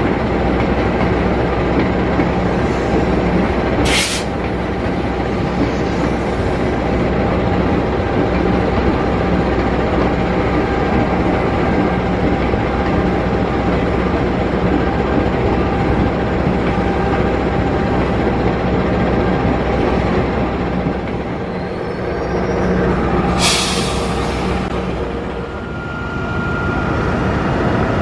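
Train running at about 113 km/h: a steady rumble of wheels on the track with a low hum. There is a brief hiss about 4 seconds in and a longer one at about 23 seconds, and a faint steady whine near the end.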